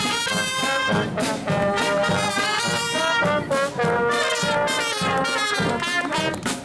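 Marching brass band playing a tune: trumpets and trombones carrying the melody over a sousaphone and a steady bass drum beat.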